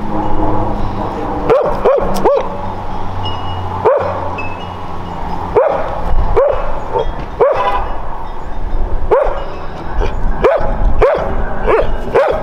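Yellow Labrador retriever barking repeatedly at a stray dog, about a dozen short barks at uneven intervals.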